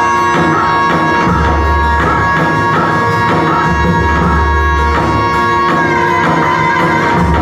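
Instrumental tallava music: a keyboard lead holds and ornaments a melody over a steady drum rhythm with heavy bass pulses.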